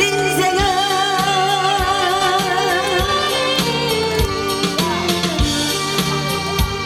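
Woman singing the closing word of a slow Korean trot song, holding the note with vibrato, over accompaniment with a steady drum beat. The accompaniment plays on into the ending of the song.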